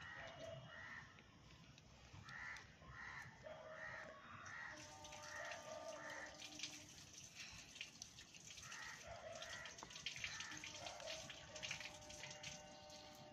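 Faint crows cawing in the background, in runs of a few calls about two a second.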